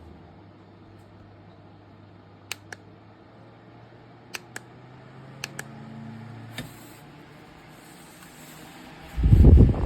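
A few sharp clicks in pairs over a faint hum, then about nine seconds in a loud low rush as the clip-on fan's airflow buffets the microphone.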